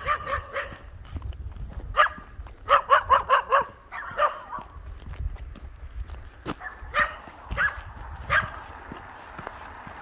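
A dog barking: single barks at first, then a quick run of about five barks around three seconds in, then scattered barks until shortly before the end.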